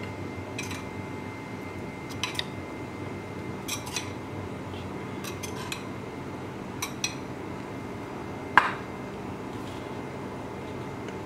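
Metal spoon clinking lightly against a small bowl and a ceramic plate as breadcrumbs are spooned onto minced chicken: a few scattered taps, with one sharper clink about eight and a half seconds in. A steady low hum runs underneath.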